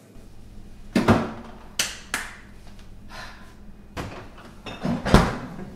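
Refrigerator door being opened and things handled inside it: a series of about six sharp knocks and clunks, the loudest thud near the end.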